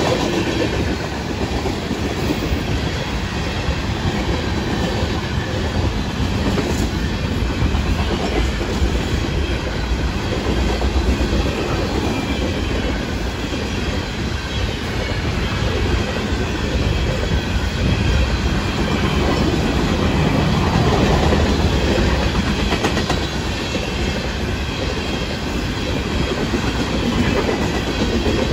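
Florida East Coast freight train's tank cars and refrigerated boxcars rolling past close by, steel wheels running on the rails in a steady, loud stream of noise.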